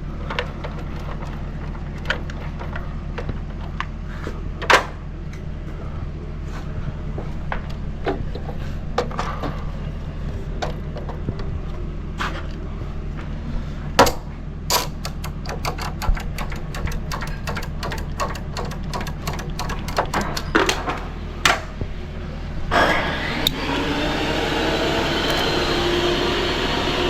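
Scattered knocks and clicks of tools and parts being handled, with a run of quick clicks midway. Near the end a power tool starts up and runs steadily, cutting or working material.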